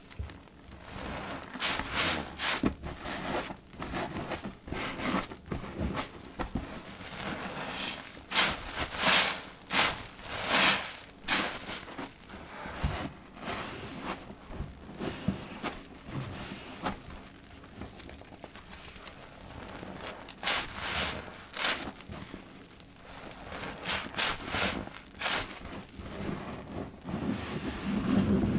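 New white sponge soaked with liquid-soap foam being squeezed and worked by gloved hands in a basin of suds: irregular wet squelches with some hiss and crackle from the foam, the strongest in a cluster about a third of the way in.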